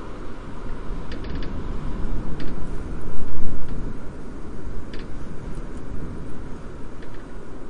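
Wind buffeting a phone microphone in a snowstorm: a loud, gusty low rumble that swells a few seconds in, with a few faint clicks from the phone being handled.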